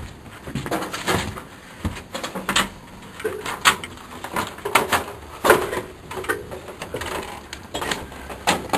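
Irregular knocks and clanks from climbing an aluminium extension ladder, feet and hands striking its rungs and rails, the loudest clank a little past halfway.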